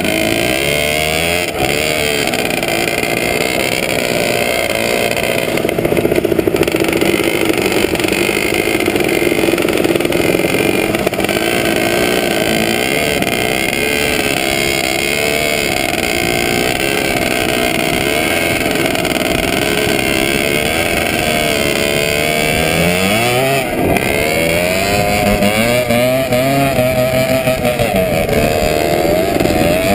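ČZ 250cc two-stroke motocross motorcycle running hard at high revs while towing a skier over snow, its pitch wavering up and down with throttle and gear changes, dipping and climbing again near the end. Other motorcycles run alongside and wind rushes over the microphone.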